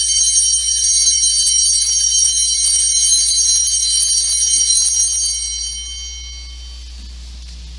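Altar bells, a cluster of small sanctus bells, shaken again and again in a bright, rapid jingling ring that signals the elevation of the consecrated host. The ringing dies away about five to six seconds in.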